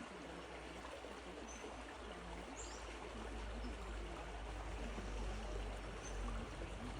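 Creek water flowing steadily, with a low rumble that grows louder toward the end and a few faint high chirps.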